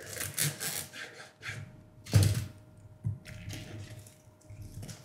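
Plastic shrink-wrap on a boxed card set being slit with a knife and pulled off: irregular crinkling and scraping, with a louder scrape and knock about two seconds in.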